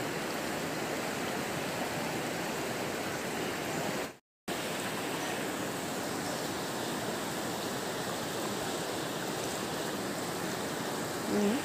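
Floodwater rushing steadily past and around houses. The sound cuts out for a moment about four seconds in.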